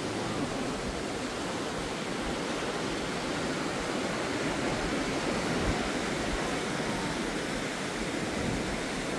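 Ocean surf rushing steadily, a continuous even wash of water noise with no single wave breaks standing out.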